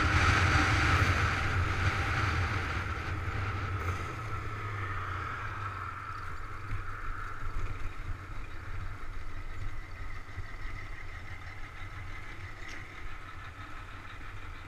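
Wind rush and the running engine of a Yamaha Fazer 250 motorcycle, heard from a camera on the bike. The sound dies down over the first few seconds as the bike slows, leaving a quieter, steady engine note at walking pace.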